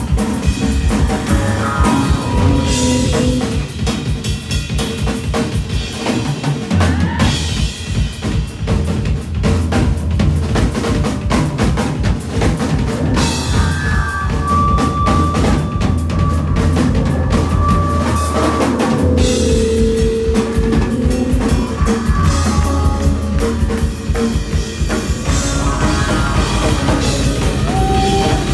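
Live instrumental rock played loud on electric shamisen and drum kit, the drums driving hard on bass drum and snare. A steady low bass note holds through the middle stretch.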